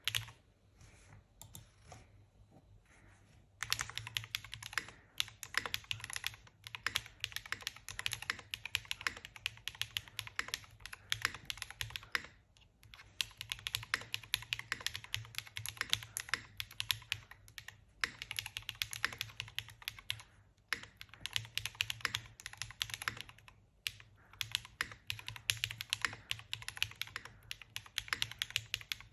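Typing on a Not Defined TKL custom mechanical keyboard with a 1.6 mm PCB: a few separate keystrokes, then about three and a half seconds in, fast continuous typing in runs of sharp clicks with short pauses between bursts.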